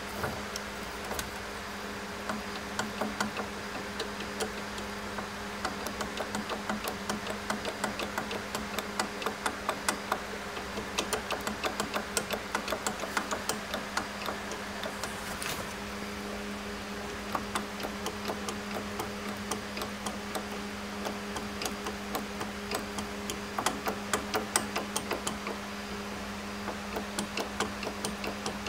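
Benchtop drill press running with a steady motor hum, over which comes a rapid, irregular ticking that comes and goes in bursts: the abnormal noise of a drill press with a mechanical problem.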